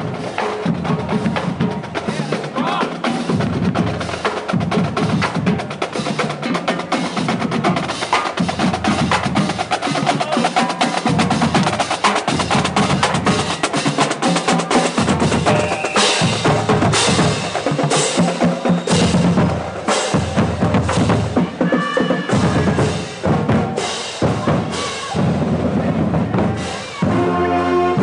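Marching band drumline playing a street cadence: snare drums over bass drum beats, with a run of cymbal crashes about once a second in the middle stretch. About a second before the end, the horns and saxophones come in with sustained notes.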